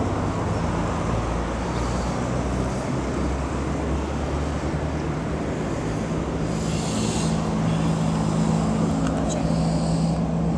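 Steady road traffic noise with a low, even engine hum, and a short burst of hiss about seven seconds in.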